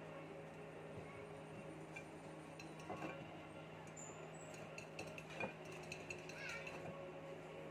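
Faint clinks and taps of rabbits nudging a ceramic food plate as they eat, over a steady low hum.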